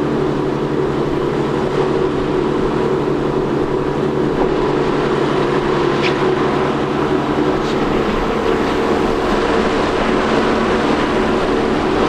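An 8-horsepower high-thrust outboard motor running at a steady cruising speed, a constant even drone with no change in pitch.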